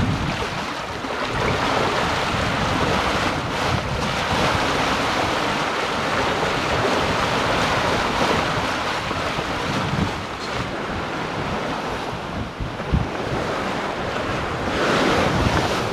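Sea water rushing and churning along a sailboat's hull and foaming wake in rough, windy sea, with wind buffeting the microphone. A louder surge of water comes near the end.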